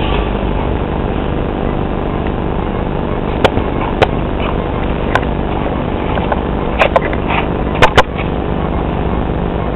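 Handling noise of a handheld camcorder being swung about: a steady hiss and rumble with scattered sharp knocks and clicks, starting about three and a half seconds in and ending with two quick pairs near the end.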